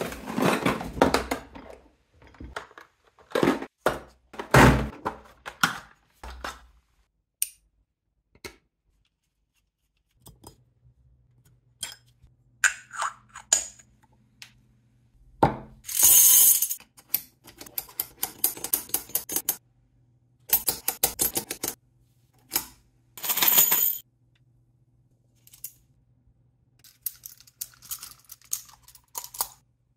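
Handling of a metal turbofan jet-engine model kit: hard plastic trays knock and scrape against foam packing for the first few seconds. After a pause come small metal parts clicking and clinking, and a hex screwdriver turning screws into the spinner cone, with sharp clusters of metallic clinks.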